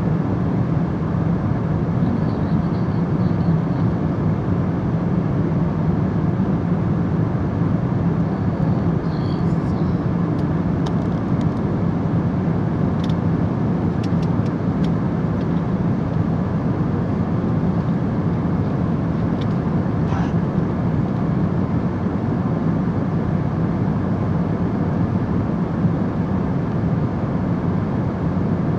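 Aeroplane cabin noise in flight: a steady engine and airflow roar with a low drone.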